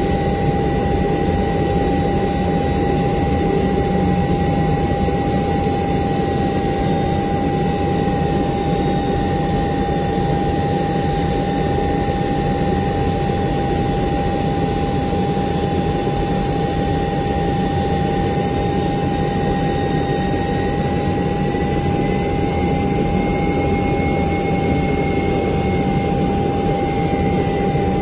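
Ilyushin Il-76's four turbofan engines and airflow heard from inside the aircraft on final approach: a steady, even drone with a high, steady whine over it. A fainter higher tone rises slightly and settles back about three quarters of the way through.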